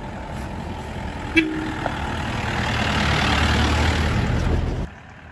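Pickup truck passing close by on a dirt lane: its engine rumble and tyre noise grow louder as it approaches, then cut off abruptly near the end. There is a single sharp knock about a second and a half in.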